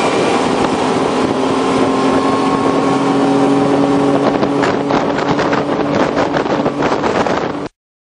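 Mercury outboard motor running steadily at speed on a moving boat, a constant engine tone with wind on the microphone. The wind buffeting turns choppier in the second half.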